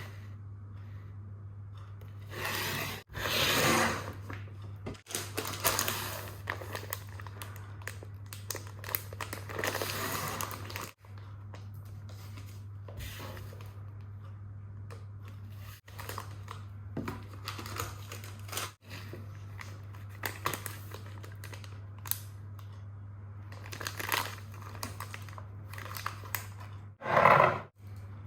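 Plastic packaging and bags crinkling and rustling in irregular bursts as grocery items are handled, over a steady low hum, with several brief sudden breaks in the sound.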